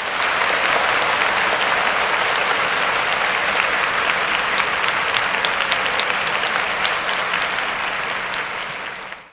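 Crowd applause, dense clapping that starts abruptly, eases slightly near the end and then cuts off.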